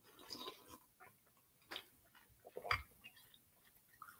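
Faint sounds of a person eating from a bowl: a sip from the rim and chewing, in a few short, separate bursts, the loudest a little past halfway.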